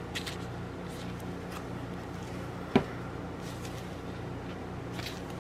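Handling of stamped cross-stitch fabric and a plastic floss card: a few faint rustles and one sharp tap a little under three seconds in, over a steady low hum.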